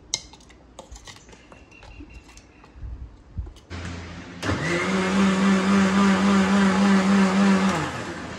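A spoon clicks and scrapes inside a steel mixer-grinder jar. Then a Philips mixer grinder is switched on: its motor spins up quickly, runs steadily for about three seconds, giving the wet spice paste a second grind after more water was added, and winds down with a falling pitch as it is switched off near the end.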